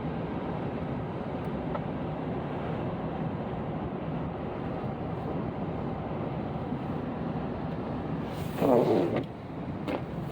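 Steady road and engine noise inside a moving car's cabin. Near the end a brief, louder wavering tone rises over it.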